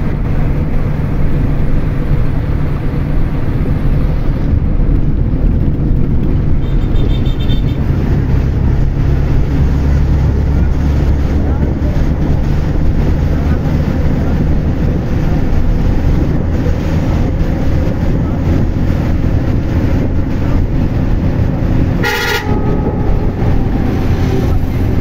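Steady low rumble of a moving vehicle, with a short horn honk near the end.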